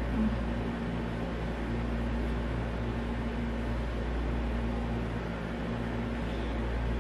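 Steady low mechanical hum with an even hiss: room noise from a running appliance.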